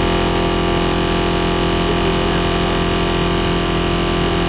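A car audio system in a competition hatchback playing a steady, unchanging bass tone at full power for a loudness measurement, so loud that it comes out heavily distorted.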